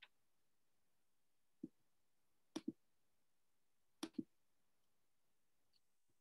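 Near silence broken by a few faint clicks from a computer mouse: one single click, then two quick double clicks about a second and a half apart, as the chat box is checked.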